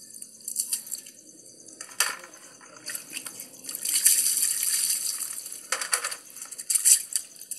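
Water poured from a plastic basin splashing over a dog being bathed: several short splashes, with one longer pour about four seconds in.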